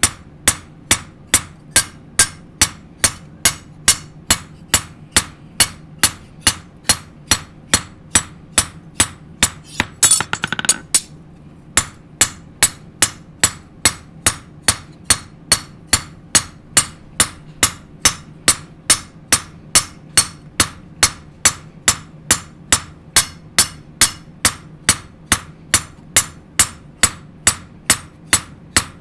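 Hand hammer striking a knife blade on a steel anvil, hammering the steel to compact it and thin the blade where it is still too thick. Sharp metallic strikes come at a steady pace of about two a second. A louder, longer burst of noise about ten seconds in is followed by a short break.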